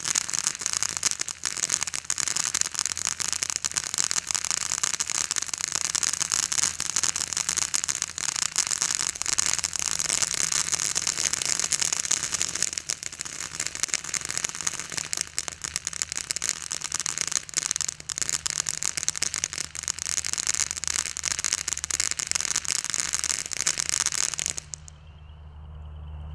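Moby Dick ground fountain firework spraying sparks: a steady hiss packed with dense crackling, which cuts off suddenly near the end as the fountain burns out.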